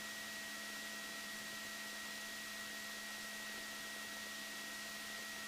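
Faint steady electrical hum and hiss with a thin high tone, the idle noise floor of the headset intercom and radio audio line. No engine or rotor sound comes through.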